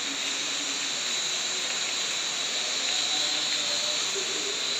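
Steady hiss of rain falling.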